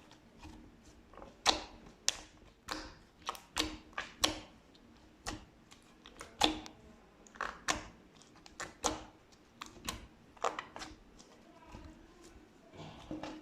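Slime being pressed and squeezed by hand, giving irregular sharp clicky pops of trapped air, about one or two a second.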